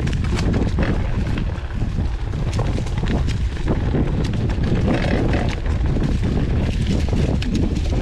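Mountain bike ride on a dirt trail, heard from a bike-mounted action camera: wind buffets the microphone with a steady low rumble. Frequent clicks and knocks come from the bike rattling over rough ground.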